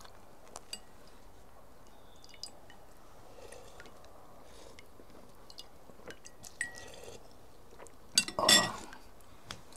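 Someone eating broth: a few light clicks of a spoon or bowl, and about eight seconds in a louder, short slurp of shurpa broth.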